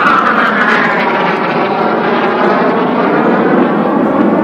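Loud roar of Canadair NF-5 jet fighters flying past in formation, peaking right at the start and holding on as a steady roar.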